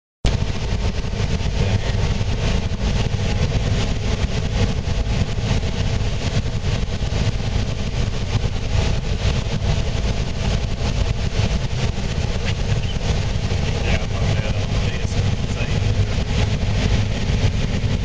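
John Deere combine running steadily while harvesting standing corn, heard from inside the cab: a constant, unbroken engine and machinery drone.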